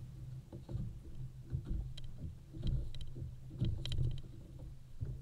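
Small waves slapping against a fishing boat's hull over a steady low rumble, with several sharp ticks between about two and four seconds in.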